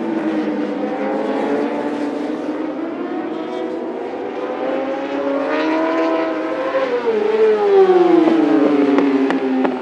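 Two superbike racing motorcycles at high revs on a race track. Their engine note climbs, then drops sharply as they pass close by about seven to eight seconds in, where it is loudest.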